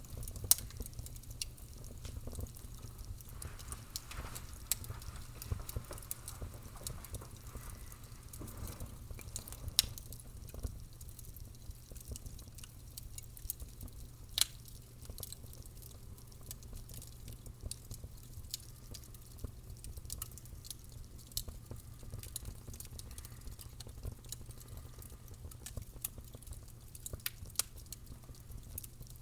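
Fire crackling: a dense run of sharp pops and snaps, a few much louder than the rest, over a low steady rumble.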